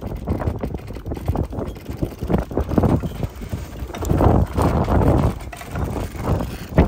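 Gusty wind buffeting the microphone high up a sailboat's mast, with irregular light knocks and clicks from the hoist and rigging. The wind gets louder about four seconds in, and a sharp knock comes near the end.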